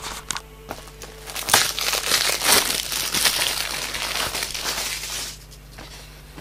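Plastic wrapping on a DVD case crinkling loudly as it is handled, for about four seconds starting a second and a half in. A few light clicks of handling come before it.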